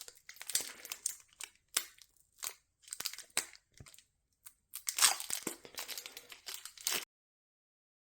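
Foil booster pack wrapper crinkling and being torn open by hand, in irregular crackly bursts with short gaps, cutting off abruptly to dead silence about a second before the end.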